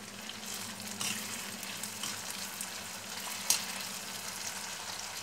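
Coarsely pounded chili and onions sizzling steadily in a frying pan while being stirred, with a single sharp tap about three and a half seconds in.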